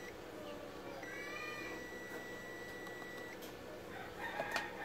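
Faint animal calls in the background over a low steady hum, with a steady high tone for a couple of seconds and a sharp click near the end.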